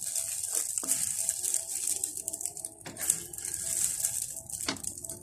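Dry egg noodles sizzling as they are stir-fried in a wok and tossed with wooden spatulas, with a steady hiss and a few sharp knocks of the spatulas against the pan, about one, three and five seconds in.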